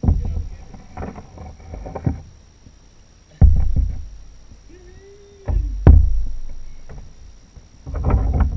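Heavy thuds and knocks on a plastic sit-on-top fishing kayak as the angler moves about handling a caught fish. Two loud sudden thuds, about two seconds apart, each die away over about a second, with lighter knocking before and after.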